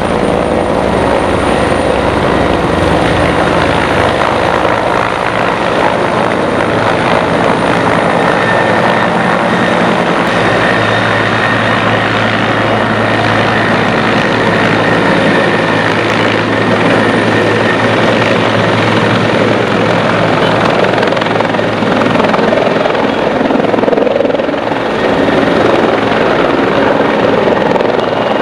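Helicopter flying in and descending to land, its rotor and engine running steadily and loud. A steady whine joins the noise about a third of the way in.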